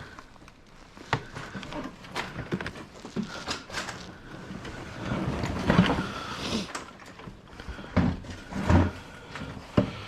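Scattered knocks, clinks and rustling of small scrap metal pieces being handled, sorted and set down, with a few sharper knocks.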